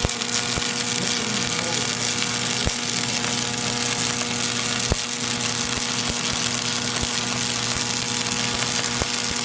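Arc welding: a steady crackling hiss from the arc, with a sharp pop every second or two and a steady machine hum beneath.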